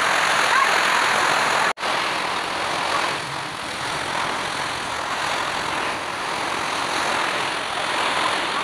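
Typhoon wind and heavy rain: a steady rushing noise of gusting wind and rain beating on the house and window. It cuts out for an instant about two seconds in, then carries on.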